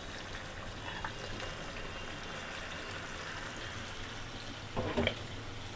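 Spiced onion-tomato masala simmering in a pan, a low steady bubbling hiss, while chunks of raw beef are added to it. A brief bump sounds about five seconds in.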